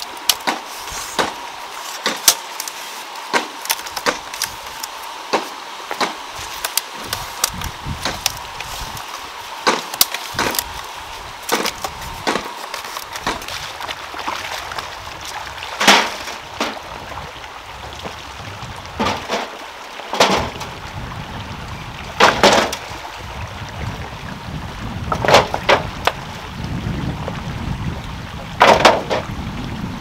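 Bamboo being cut and split with a blade: quick irregular wooden knocks and cracks, with five louder strikes that ring briefly. A low rushing noise comes up in the second half.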